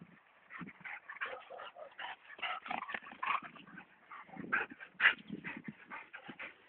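Dogs playing, giving short irregular yips and whimpers, the loudest about five seconds in.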